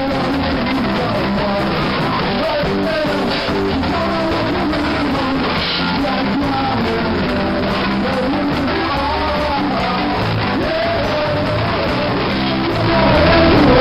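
Ska-punk band playing with electric bass and guitar, getting louder near the end.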